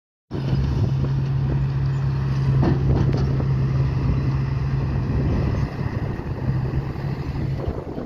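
Diesel dump truck engine running with a steady low hum, with wind buffeting the microphone. The engine gets a little quieter about six seconds in.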